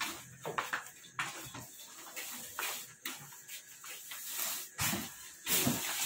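Heavy 50 kg woven sacks being dragged across and lifted off a pickup truck's bed: rustling and scraping with scattered knocks, and a louder scrape about five seconds in.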